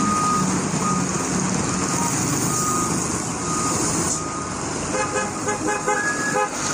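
A diesel dump truck's engine running, with short high electronic beeps sounding now and then. About five seconds in comes a quick run of short pitched beeps.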